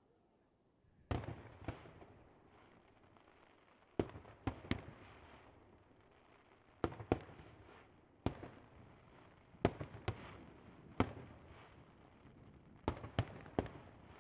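Aerial firework shells bursting in a pyrotechnic display. Sharp bangs start about a second in and come singly or in quick pairs and triples, each trailing off in an echoing rumble.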